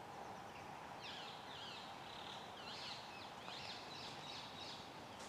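Woodland birdsong: a songbird singing runs of quick, high chirping notes from about a second in, over a steady low background hiss.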